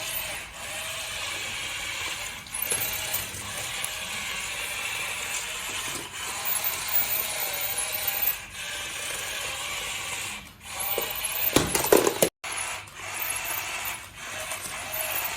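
Small electric motors and plastic gearboxes of toy RC vehicles whirring and grinding, pausing briefly every couple of seconds. A louder clatter comes about twelve seconds in.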